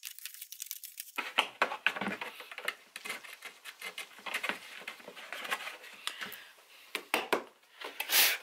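A thin clear plastic storage box being handled and the edges of its cut holes scraped with a small deburring blade: irregular scratchy scrapes, rubs and light knocks of stiff plastic, with a couple of louder bursts near the end.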